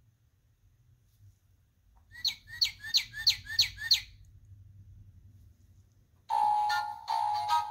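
Electronic bird chirping from a children's sound book's small speaker: about six quick falling tweets, roughly three a second. Near the end, a few steady, held electronic notes of a tune begin.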